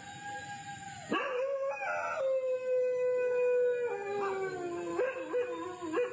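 Dog howling: a long, steady howl begins about a second in, drops in pitch near four seconds, then breaks into shorter, wavering howls near the end.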